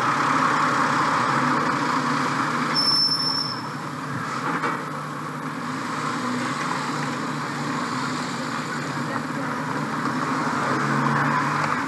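Street traffic: a flatbed lorry's engine running as it passes close by, over a general street hubbub of voices, with a brief high-pitched squeal about three seconds in.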